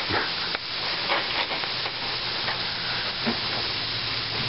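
Pork strips sizzling steadily in a hot frying pan, with a few faint clicks.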